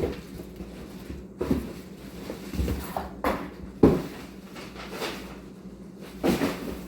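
Kitchen handling noises: about six separate knocks and clatters, like cupboards, drawers or cookware being moved, the loudest a little before the middle, over a steady low hum.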